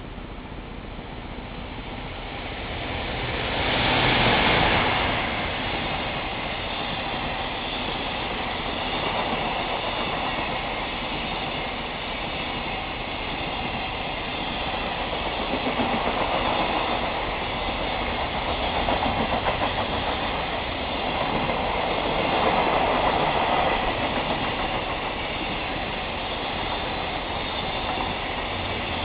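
EF200 electric locomotive (EF200-901) passing through at speed, loudest about four seconds in, followed by a long train of container wagons rolling by with a steady rolling noise that swells and eases several times.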